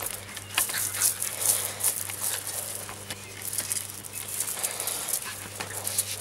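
Stiff broom bristles scraping and knocking over stone paving and gravel while a small dog grabs and bites at the broom head, giving an irregular run of scratchy scrapes and crunches.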